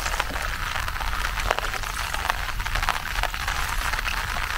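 Rain falling on river water: a steady hiss dotted with many small drop ticks, over a low steady rumble.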